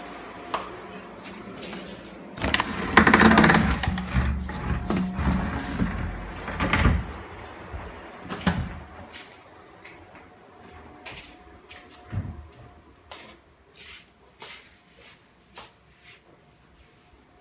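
Scattered knocks and clicks, like things being bumped and handled, with a louder, longer clatter about three seconds in and fainter single clicks later on.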